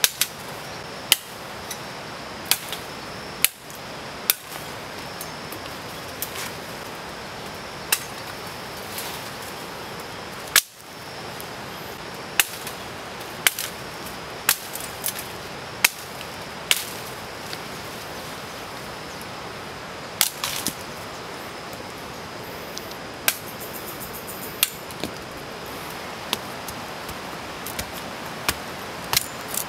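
Tramontina machete chopping into a tree branch: sharp, irregular chops a second or two apart, over a steady hiss of rain.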